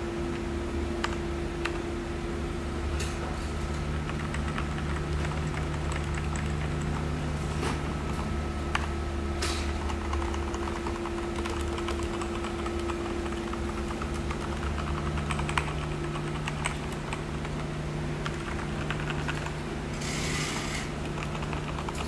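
Typing on an Azio MK-MAC-U01 wired mechanical keyboard: an irregular run of key clicks. A steady low hum runs underneath.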